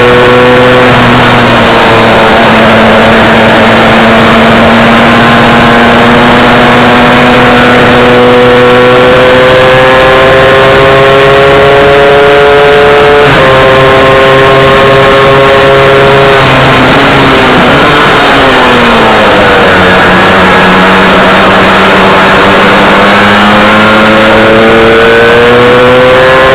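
Onboard sound of an MZ 250 two-stroke single-cylinder race motorcycle under hard acceleration, very loud, with heavy wind rush. The engine note climbs slowly through long pulls, steps up suddenly about halfway through, falls away for a few seconds, then climbs again toward the end.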